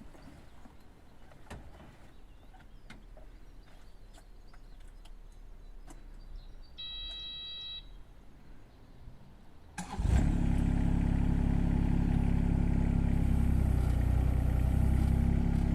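A Kubota KX019-4 mini excavator being started: a few light clicks, a warning beep lasting about a second, then its three-cylinder diesel engine catches suddenly about ten seconds in and settles into a steady idle.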